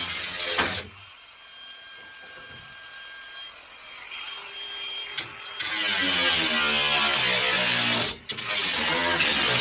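Power cutting tool running in bursts as it cuts out a rusted sheet-metal floor pan. It stops about a second in, is quiet for several seconds, then starts up again and runs loud with a brief break near the end.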